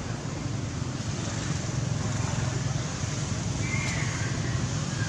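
Steady low rumble and hiss of outdoor background noise, with a faint short high call about four seconds in.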